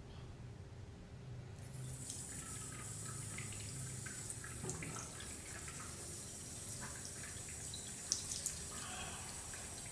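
Water running from a brass cross-handle basin tap into a ceramic sink, starting about one and a half seconds in and staying steady. Near the end come a few sharp splashes as water is scooped up onto a face.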